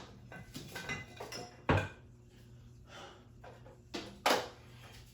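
A few sharp knocks or clicks, one about a second and three quarters in and two close together near four seconds, over a faint steady low hum.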